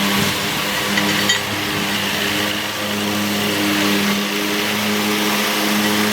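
A vehicle engine running steadily at low revs, with a few light metallic clinks about a second in.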